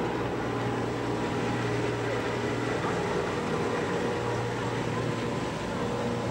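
Steady street traffic noise with a low, constant hum underneath.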